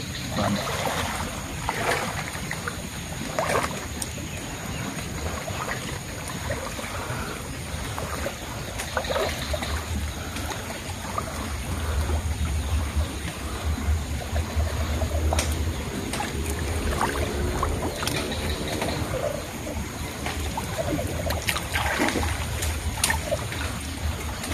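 Shallow pond water sloshing and trickling as hands work in it, with scattered small splashes.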